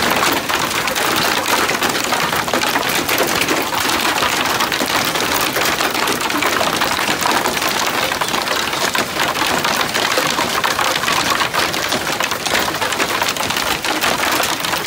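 Heavy hail pelting down: a dense, continuous clatter of countless small hailstone impacts on the deck, ground and vehicles.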